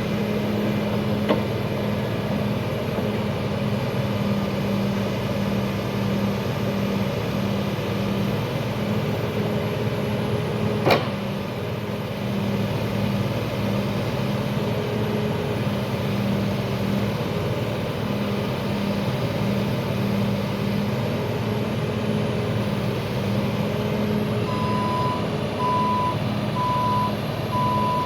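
Heavy equipment diesel engine running steadily under work, with a sharp knock about eleven seconds in. Near the end a reversing alarm starts beeping at an even pace, about one beep a second.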